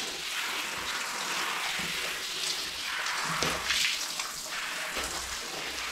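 Water spraying from a handheld shower head onto a dog's wet coat and the tiled floor, a steady hiss as the shampoo is rinsed out.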